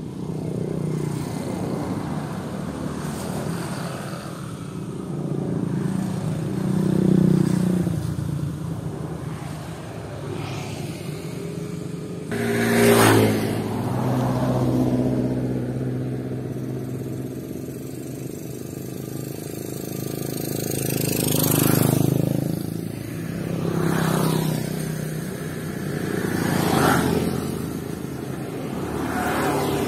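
Small rice combine harvester's diesel engine running under load while harvesting, a steady drone whose loudness swells and eases. Several brief, louder rushes come through about midway and again in the second half.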